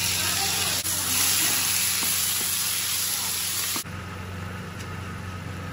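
Green peas and spice masala sizzling in hot oil in a steel kadai, with a few light clicks of the stirring spoon. About four seconds in, the sizzle cuts off abruptly and a quieter simmer of the liquid curry follows.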